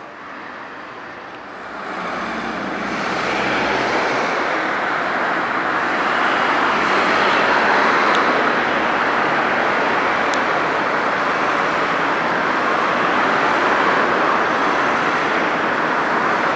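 Steady city traffic on a multi-lane boulevard: cars, a taxi and a bus passing in a continuous rushing noise that grows louder about two seconds in.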